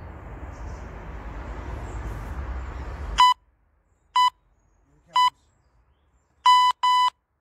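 Electronic interval timer beeping a countdown: three short beeps about a second apart, then two longer beeps in quick succession, signalling the start of the next exercise set. Before the beeps a steady background hiss cuts off abruptly.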